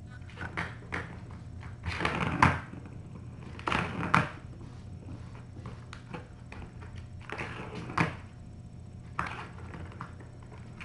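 Cats playing right beside the camera: irregular scuffling knocks and rattles, the loudest around two, four and eight seconds in.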